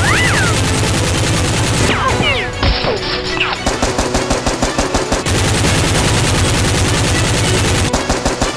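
Rapid automatic gunfire sound effects, one long stream of shots, with a few brief whistling pitch glides about two to three seconds in.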